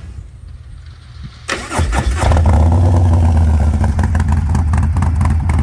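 Harley-Davidson Street Glide's 124-cubic-inch Milwaukee-Eight V-twin being started: it cranks and catches about a second and a half in, then idles loudly and steadily through its 2-into-1 side-dump exhaust.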